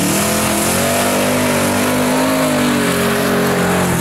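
Holden VH Commodore's V8 held at high revs through a burnout, the engine note wavering slightly up and down over the hiss of the spinning rear tyres.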